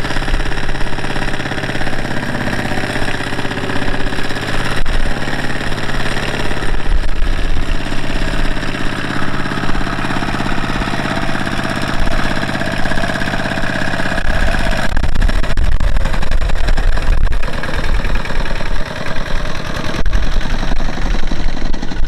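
Single-cylinder Kubota ZT155 diesel engine of a two-wheel walking tractor running under load, chugging as it hauls a trailer of rice through mud; its steady note changes about fifteen seconds in.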